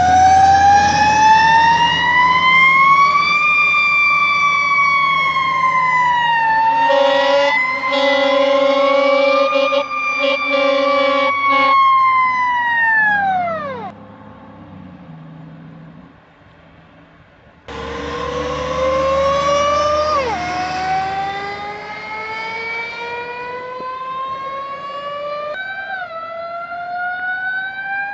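Fire engine sirens: the first winds up in a long rising pitch, wavers, then winds down and stops; after a short lull, another siren winds up slowly, its pitch dropping briefly twice before it climbs again. A steady pulsing tone sounds under the first siren for several seconds.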